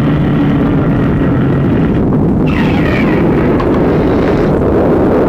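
A loud, steady low rumble that runs on without a break.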